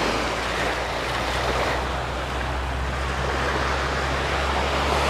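Surf washing onto a sandy beach, with wind on the microphone and a low, steady engine hum underneath.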